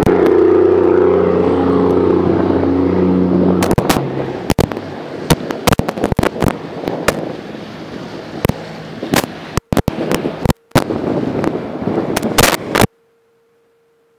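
A passenger ferry boat's diesel engine running with a steady low hum for the first few seconds, its pitch wavering slightly. Then a rough hiss full of sharp crackles and pops, broken by two short dropouts, before the sound cuts off about a second before the end.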